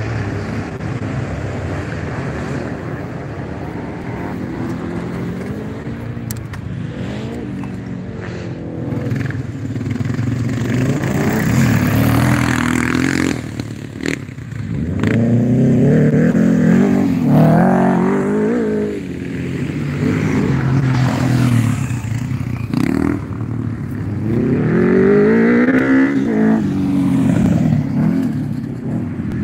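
Sidecar motocross outfits racing on a dirt track, their engines revving up and down as they pass, one after another. The engines are loudest about halfway through and again near the end.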